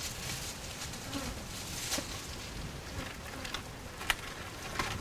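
Faint rustling of coconut palm fronds and nut clusters as a climber works in the crown, with a few light sharp snaps over a steady faint hiss.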